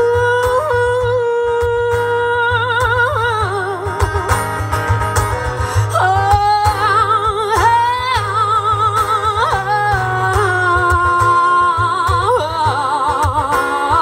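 A woman singing live through a PA with her own strummed acoustic guitar, holding long notes with a clear vibrato.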